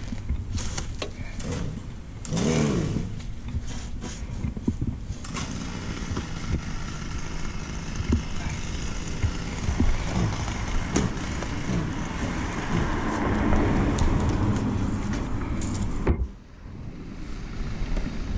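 PowerTek stump grinder's small gasoline engine running hard while its cutting wheel grinds into a dead palm stump, with scattered knocks from the cutter. About two and a half seconds in the engine pitch briefly rises and falls. About sixteen seconds in the sound drops off sharply, then comes back quieter.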